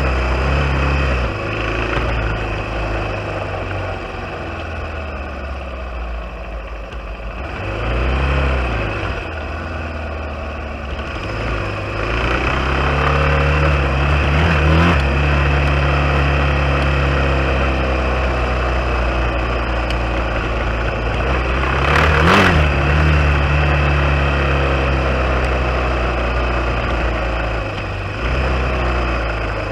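Off-road vehicle's engine running while riding a dirt trail, its pitch rising and falling with the throttle. It eases off about four seconds in, picks up again near eight seconds, and runs louder and steadier from about twelve seconds on, with a brief rev a little past twenty seconds.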